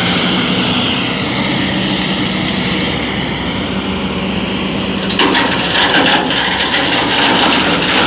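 Heavy diesel engine running steadily. About five seconds in, a loud gritty rush with crackling starts as sand pours from the excavator bucket into the truck bed.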